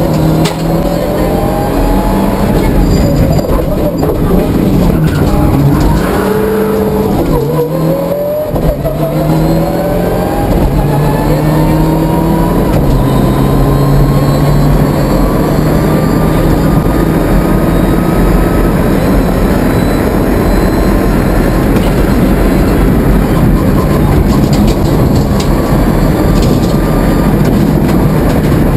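Mitsubishi Lancer Evo IX rally car's turbocharged 2.0-litre four-cylinder engine under hard driving, heard from inside the cabin over road and tyre noise. The revs dip and pick up again about a quarter of the way through, then the engine pulls hard in one long run with the pitch slowly rising.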